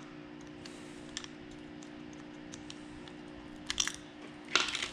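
Light plastic clicks and taps of a Mercedes key fob's battery case and its coin-cell battery being handled: a faint click about a second in, then two louder clusters of clicks near the end, over a low steady hum.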